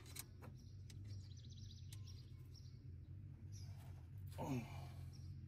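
Quiet hand-handling sounds, a few light clicks and rubbing, as a fuel line is bent into place on the engine, over a steady low hum. A short sound falling in pitch comes about four and a half seconds in.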